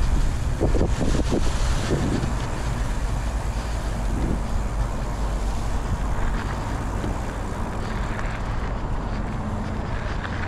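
Nukeproof Scout hardtail mountain bike riding along a trail: a steady low rumble of wind on the microphone and tyres rolling over the ground.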